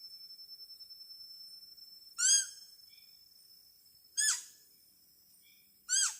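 Deer call: three short, high-pitched call notes about two seconds apart, each rising and then falling in pitch.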